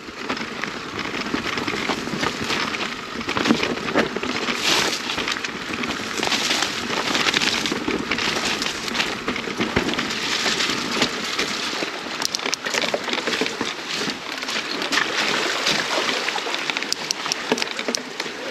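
Mountain bike moving along a bush trail: a steady, dense rustle and crackle of tyres on dirt and twigs, with undergrowth brushing past and irregular clicks and rattles throughout.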